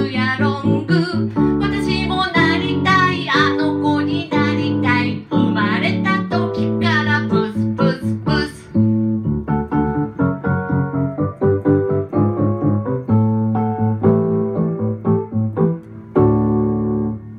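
A woman sings into a microphone with electric keyboard accompaniment. The singing stops about halfway through, and the keyboard plays on alone, ending on a held final chord.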